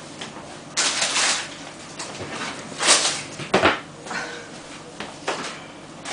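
A puppy playing on a tiled floor with a blanket and rope toy: a few short scuffling and rustling noises and one sharp knock about three and a half seconds in.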